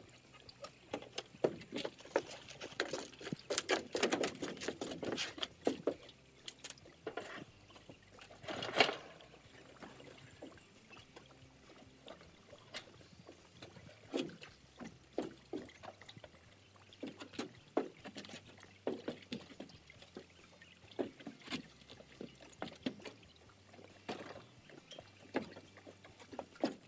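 Water sloshing and trickling around a floating boat lift's frame and air bags as it is pushed through the shallows, with scattered irregular knocks and a louder knock about nine seconds in.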